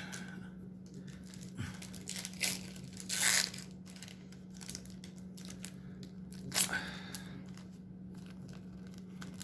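Trading card pack wrapper being torn open and crinkled, in a few short rips with small rustling clicks between, over a steady low hum.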